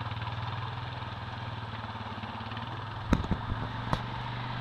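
Quad bike (ATV) engine running at a steady pace while it is ridden. Two sharp knocks come about three and four seconds in.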